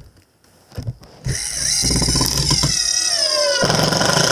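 Cordless drill driving a screw into a wooden board: the motor starts about a second in and runs hard, its whine dropping in pitch partway through as the screw bites deeper and loads it.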